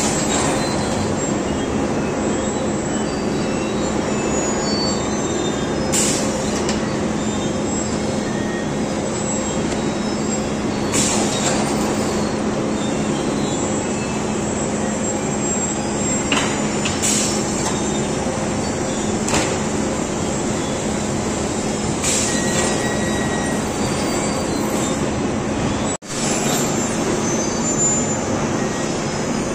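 Plywood veneer roller dryer running: a steady mechanical drone with a constant low hum, broken by about five short clanks. The sound cuts out for a moment near the end.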